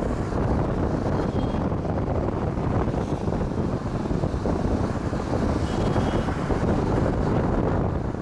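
Steady road and wind noise from a moving vehicle, with wind rumbling on the microphone.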